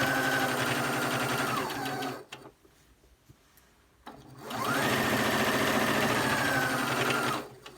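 Singer Heavy Duty 6600C sewing machine stitching in two runs. It runs at speed, slows and stops about two seconds in, then after a pause of about two seconds its motor whine rises as it speeds up again and runs steadily until it slows and stops near the end.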